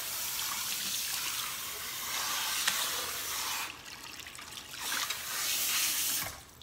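Water spraying at a salon shampoo bowl while hair is rinsed, a steady hiss that stops about four seconds in, comes back a second later and cuts off shortly before the end.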